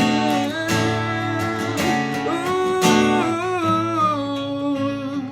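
Martin GPCPA4 acoustic guitar strummed, layered with looped guitar parts from a looper pedal, with sung notes that slide in pitch over it.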